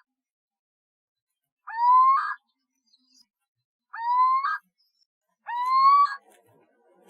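Owlet calling three times, about two seconds apart: each call a rising, drawn-out wail that ends in a short rough rasp.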